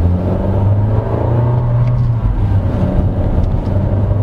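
Honda City RS's 1.5-litre i-VTEC four-cylinder engine heard from inside the cabin, pulling under acceleration through its CVT in sport mode. The engine note steps up at the start and drops back about halfway through.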